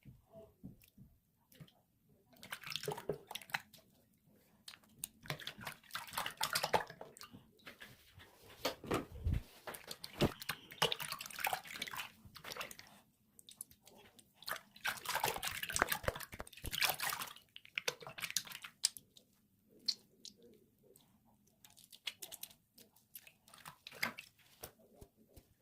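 Liquid soap being squished and sloshed with water, in irregular wet bursts a second or two long with short pauses between them.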